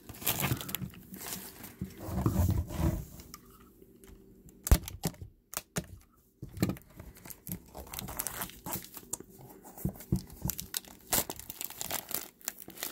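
Plastic shrink wrap being cut, torn and crinkled off a metal trading-card tin, with irregular rustling and clicks of the tin being handled. There is one sharp click about five seconds in.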